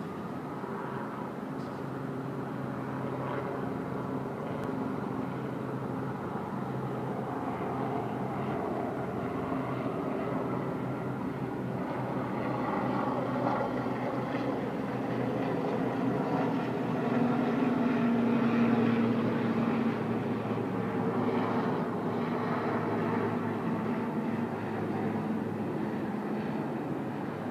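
Steady hum of city engine noise with a few low steady tones, slowly growing louder to a peak about two-thirds of the way through, then easing off a little.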